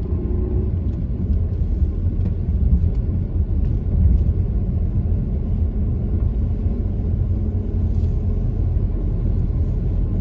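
Steady low rumble of a car's engine and tyres heard from inside the cabin while driving at low speed along a residential street.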